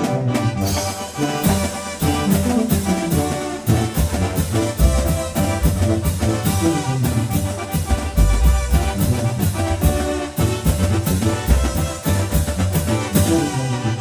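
Live band music from a keyboard-led group: synthesizer keyboards over a drum kit keeping a steady beat.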